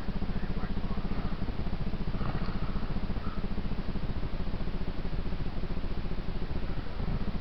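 Dirt bike engine idling with a quick, even beat.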